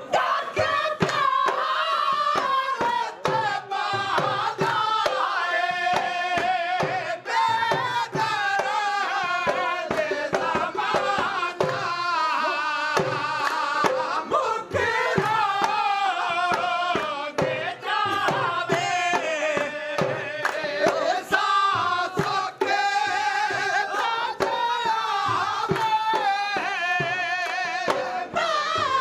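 Men singing a Punjabi folk song in full, high voices with wavering, ornamented lines, over a dhol drum beating a steady rhythm.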